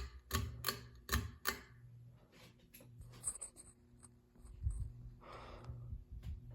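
Ceiling fan motor humming steadily, with a run of sharp clicks, about three a second, in the first second and a half.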